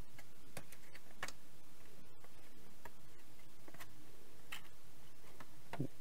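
A handful of light, irregular clicks and ticks from a circuit board and its plastic retaining clips as the board is eased out of a plastic housing, over a steady background hiss.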